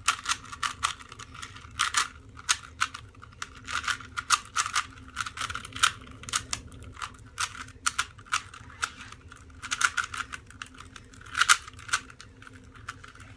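Rubik's Cube being twisted fast by hand: an irregular run of sharp plastic clicks, several a second, as its layers turn.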